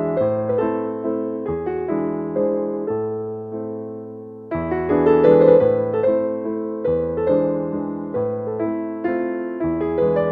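Slow, gentle piano music: chords struck and left to fade, changing every second or so, with a brief fall-off and a louder new chord about halfway through.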